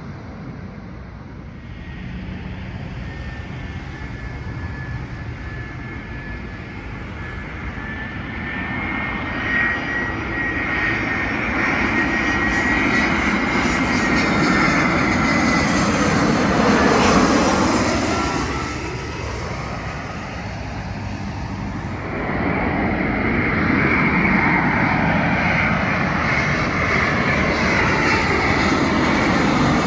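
Jet airliner engines passing low overhead on landing approach: a high whine over a deep engine rush that builds, peaks a little past halfway as the jet goes over, and drops in pitch. A sudden cut about two-thirds of the way through brings in a second airliner's engines building as it approaches.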